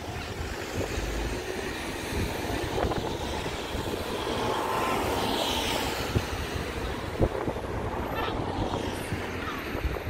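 Outdoor riverside background noise: wind buffeting the microphone over a low, steady rumble, with a few faint knocks in the second half.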